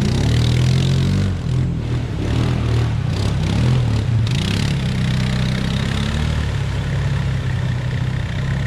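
ATV engine revving up and down, then running at a steadier pitch from about halfway through.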